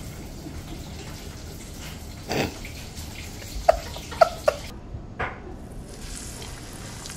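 Hot oil sizzling in a frying pan as battered whiting fillets are laid in, a steady hiss. Three short, sharp sounds come close together just before the middle.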